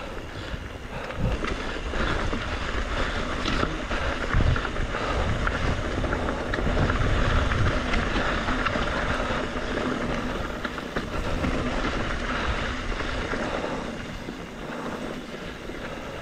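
A 2021 Trek Slash 7 mountain bike riding a dirt singletrack: tyre noise and the rattle and clatter of the bike over the rough trail, with wind buffeting the microphone. It is louder through the middle and eases near the end.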